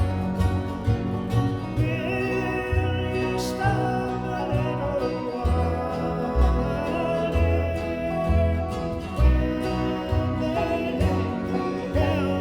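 Bluegrass band playing a slow song: strong plucked bass notes about once or twice a second under guitar and a sustained, wavering string melody line.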